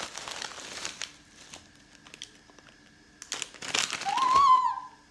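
Thin plastic bag crinkling as a hand rummages through candy inside it, in two spells, louder the second time. Near the end a child gives a high, excited vocal exclamation that rises then falls in pitch.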